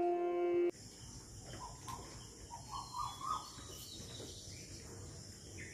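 Music cuts off under a second in, giving way to outdoor ambience. A steady high insect drone runs under a bird's short rising chirps, which repeat in a run.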